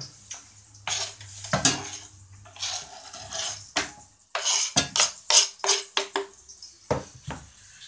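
Knife scraping chopped boiled eggs off a wooden cutting board into an enamel bowl: an irregular run of scrapes and sharp knocks of knife and board against the bowl.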